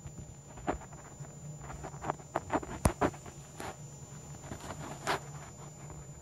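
Fingers handling a cat's face and fur close up: soft rustles and scattered clicks, with one sharp click about three seconds in, over a low steady hum.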